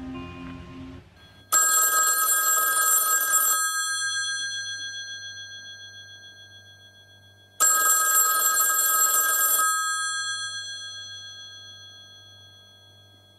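Rotary-dial telephone's bell ringing twice, each ring about two seconds long and fading out slowly after it stops, the two rings about six seconds apart.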